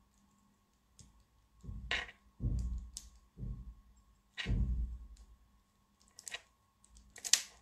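Soft clicks and a few short, low thumps at a phone's microphone, with no speech; faint handling noise.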